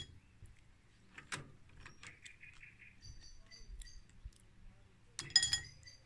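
Small sea snail shells clinking against each other and a ceramic bowl as they are handled, a few light clinks and then a louder clatter of several clinks about five seconds in.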